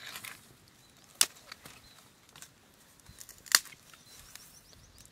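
Small fire of dry straw crackling: two sharp pops, about a second in and about three and a half seconds in, with fainter ticks between.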